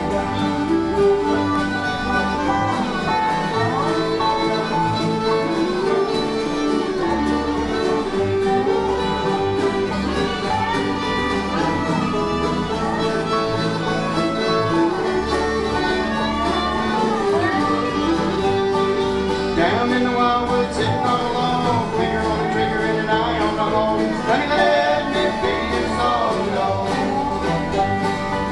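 Live bluegrass band playing an instrumental break: fiddle and harmonica taking the lead in turn over strummed acoustic guitar and banjo, with a steady bass line underneath.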